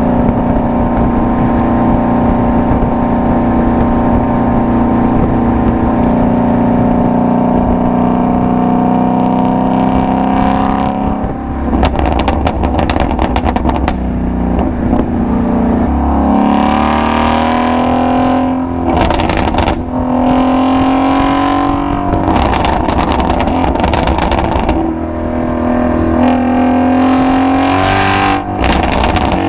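Ford Shelby GT350's 5.2-litre flat-plane-crank V8 exhaust under way. It holds a steady cruise for about the first ten seconds, then runs through several rising revving pulls with short breaks between them.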